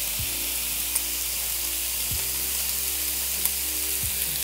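Cubed pork belly frying in its own rendering fat in a hot pan, turning into cracklings: a steady sizzle with a couple of sharp pops, one about a second in and one near the end.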